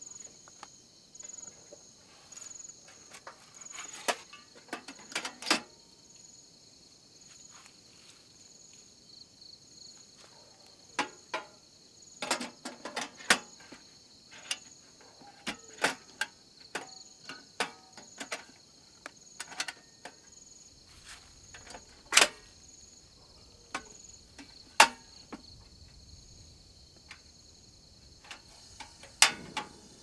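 Crickets chirping steadily in a high, pulsing trill, with scattered sharp clicks and knocks throughout, several of them loud.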